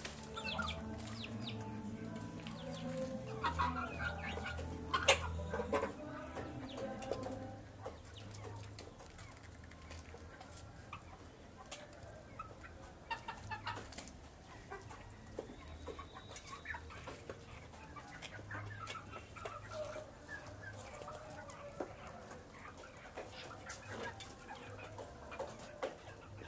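Young chickens clucking and cheeping as they feed, with many short sharp taps among the calls.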